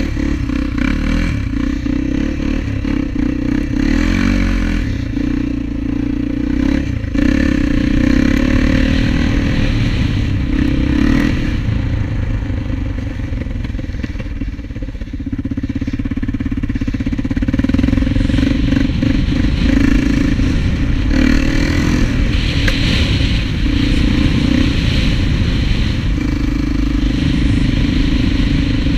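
Honda TRX400EX quad's single-cylinder four-stroke engine running under throttle while riding, the revs rising and falling, with a brief easing off about halfway through.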